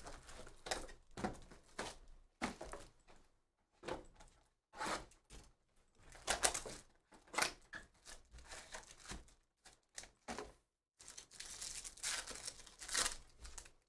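A Bowman Chrome Hobby cardboard box being opened and its foil card packs handled: a string of short, irregular rustles, scrapes and light knocks. Near the end comes a longer stretch of crinkling and tearing as a foil pack is ripped open.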